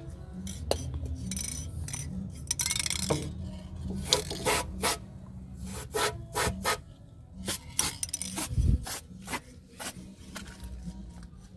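Handling noises: a string of irregular clicks, knocks and rubbing, with a short hiss about three seconds in.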